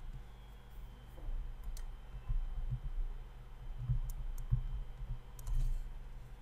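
Scattered sharp clicks and soft, irregular low knocks from pen input on a computer as words are handwritten onto a document, over a faint steady hum.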